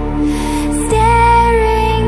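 Background music with held melody notes over a sustained bass; a new chord with a heavier bass comes in about a second in.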